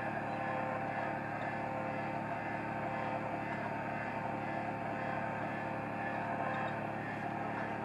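A boat's engine running steadily at a constant speed: an even hum of several fixed tones.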